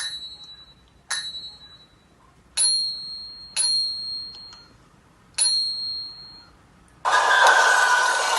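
Five bell-like dings, each struck sharply and ringing high before fading, spaced unevenly about a second or two apart. About seven seconds in, a loud hissing noise starts suddenly and carries on.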